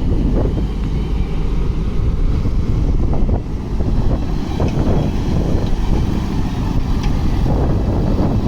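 JCB 3DX Super backhoe loader's diesel engine running steadily, with wind rumbling on the microphone and a few brief knocks.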